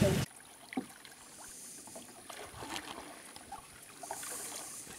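Canoe being paddled: soft dripping and swishing of water around the paddle and hull, with light splashes and a single knock about a second in. A burst of louder rushing boat noise cuts off abruptly at the very start.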